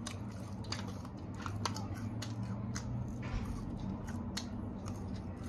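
Irregular light clicks and crinkles of fingers picking food out of an aluminium foil takeout tray, over a steady low hum.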